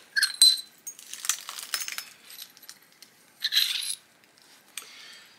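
Knapped stone clinking: a freshly struck long blade flake and its core knocking together, with a glassy ringing clink near the start, then scattered small clicks and a short scraping rustle about three and a half seconds in.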